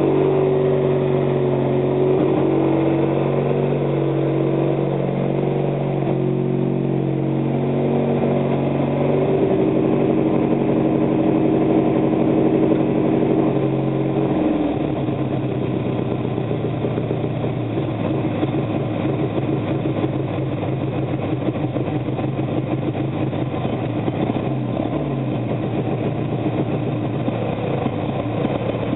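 Roper lawn tractor's engine running steadily; about halfway through its note drops and turns rougher and more uneven.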